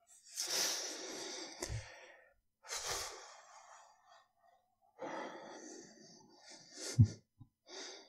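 A man breathing close to the microphone: three long breaths and a short one near the end, with a few soft low thumps, the loudest about seven seconds in.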